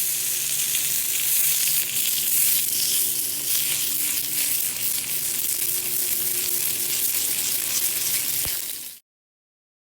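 Bell peppers and celery sizzling hard in hot pork fat and bacon in a cast iron wok, a steady loud frying hiss that cuts off suddenly near the end.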